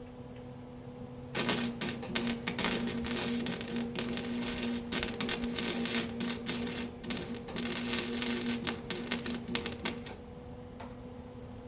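Electric arc welder crackling and spitting while welding steel cattle-panel wire, over a steady low hum. The crackle starts about a second and a half in and runs in short broken stretches until it stops near the end.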